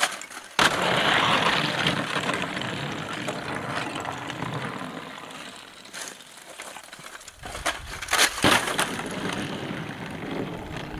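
Ice cracking and crunching: a sudden crunch about half a second in, then a long crackling that slowly fades, and a few sharp cracks around eight seconds in.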